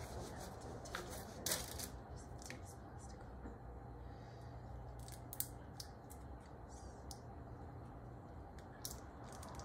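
Scattered small clicks, crinkles and rustles of gloved hands handling seedlings in small plastic nursery pots and potting soil, the sharpest click about a second and a half in, over a low steady hum.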